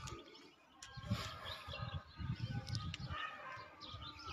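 Faint animal calls, a few short ones in two clusters, with birds chirping.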